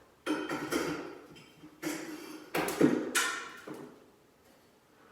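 A bay-window curtain pole knocking and scraping against its brackets and the wall as it is forced round. There are several sharp knocks with a short ringing tail, the loudest about three seconds in, and the noise dies away before the end.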